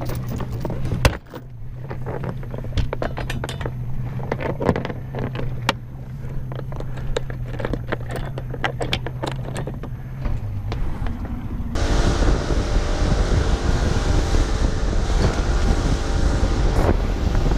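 Anchor chain rattling and knocking as it is hauled over the bow, over a steady low hum from the idling outboard. About two-thirds of the way through it switches suddenly to the outboard running at speed, with a loud rush of wind and water from the wake.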